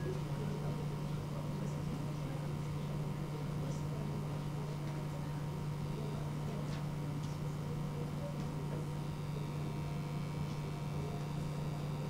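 Steady low hum with faint room noise, unchanging throughout.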